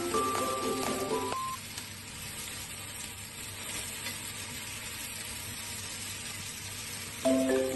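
Vegetables sizzling in a hot frying pan as they are stir-fried with chopsticks, a steady hiss. Light marimba-like background music plays for the first second or so and comes back near the end.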